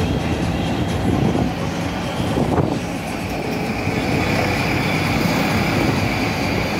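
Steady road and engine noise of a car crossing a bridge, heard from inside the cabin.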